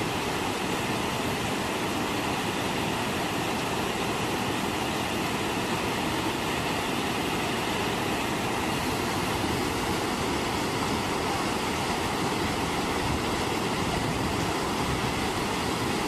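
Steady rushing of a waterfall, an even, unbroken wash of water noise.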